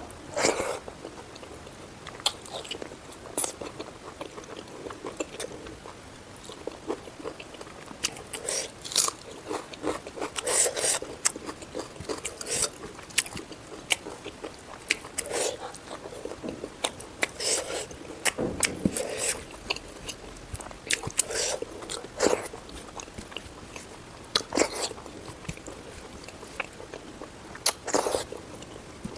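Close-miked chewing and biting of someone eating pork curry, with irregular sharp wet mouth clicks scattered throughout.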